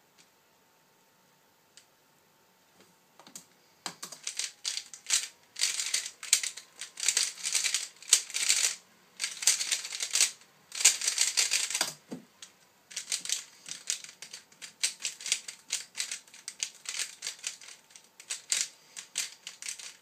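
Rubik's cube being turned at speed: dense, rapid plastic clicking and clattering of the layers in quick clusters. It starts about four seconds in, pauses briefly around twelve seconds, then carries on until near the end. The first part is a timed speedsolve.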